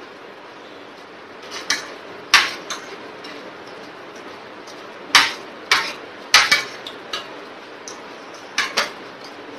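Metal spoon and fork clinking and scraping against a plate as the last of the rice is gathered up: about ten sharp clinks in irregular clusters over a steady background hiss.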